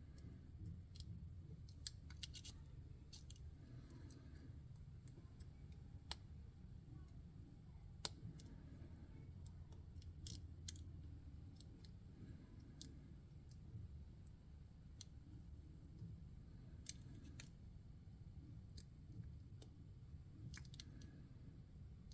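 Faint, irregular small metallic clicks and scrapes of a lock pick and tension wrench working the pins inside a Master Lock 140 padlock, with a sharper click every few seconds.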